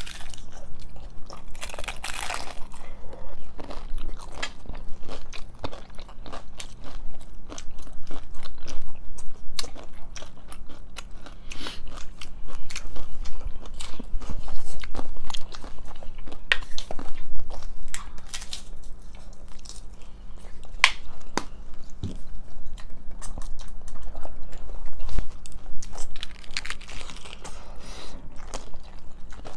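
Close-up crunching and chewing of crispy hard-shell tacos: many sharp, irregular crunches as two people bite and chew.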